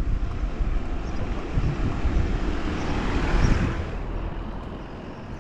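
A car passing close by, its tyre and engine noise swelling to a peak about three and a half seconds in and then fading away. Under it runs a steady low rumble of wind on the microphone of a camera riding along on a bicycle.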